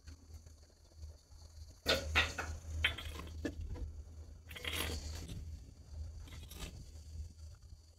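Garden hoe striking and scraping through dry, stony soil in several uneven strokes, the loudest about two seconds in and again around five seconds.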